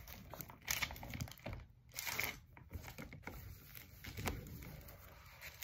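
Bible pages being turned by hand: a few short, irregular paper rustles.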